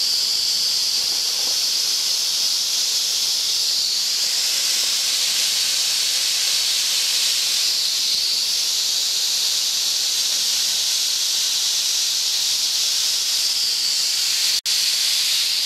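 Safety valve on a small vertical steam boiler popped off, blowing steam in a steady, loud hiss.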